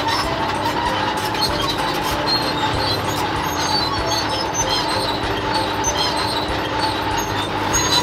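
Steady engine noise of a tracked excavator driving along, a vehicle sound effect for the cartoon.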